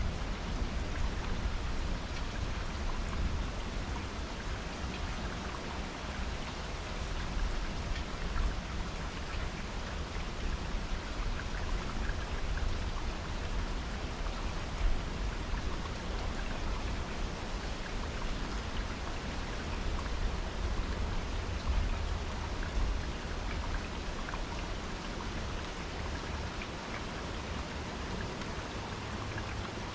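Steady heavy rain from a severe thunderstorm falling, with drops ticking on nearby surfaces and a low rumble underneath. It eases slightly toward the end.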